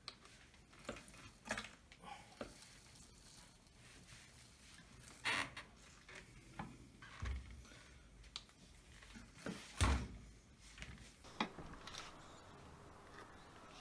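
Fox Float X2 rear shock making a smacking, slurping noise as it works, in irregular short squelches every second or two, the loudest about ten seconds in. The noise is a sign of a worn shock that is due for a service, not of a defect.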